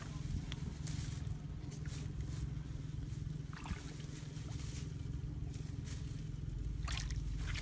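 Leafy branches rustling and scraping as they are laid over a muddy pit, in a few short bursts, over a steady low rumble.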